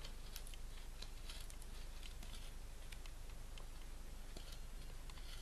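Mora Bushcraft Force knife blade shaving thin curls off a dry hardwood stick to make a feather stick: a faint run of short scrapes and light ticks, stroke after stroke.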